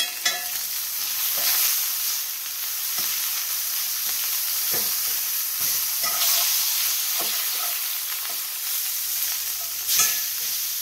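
Rib steak searing in a hot cast-iron skillet with sliced garlic, a steady sizzle. A few light knocks come from the garlic and meat being moved in the pan, with a sharper one near the end.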